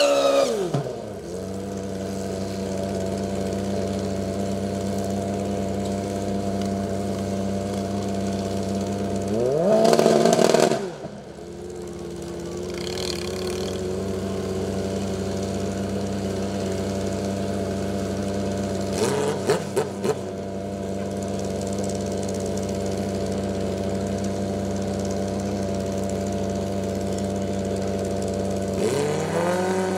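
Drag-racing motorcycle engines. High burnout revs drop away to a steady idle at the start, with one quick rev up and down about ten seconds in and a few short throttle blips around twenty seconds in. The revs climb again near the end as the bikes stage.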